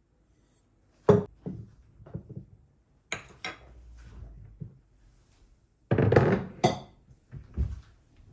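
Kitchen dishes and utensils being handled: a string of separate knocks and clinks, the loudest about a second in and around six seconds in.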